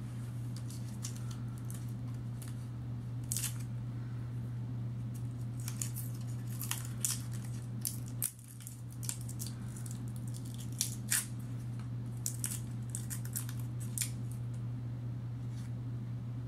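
Waxed paper wrapper of a Starburst fruit chew crinkling as fingers unwrap it, in scattered sharp crackles, over a steady low hum.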